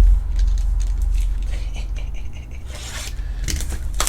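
Trading cards and their wrappers being handled: light scraping and rustling with small scattered clicks, growing busier near the end, over a steady low hum.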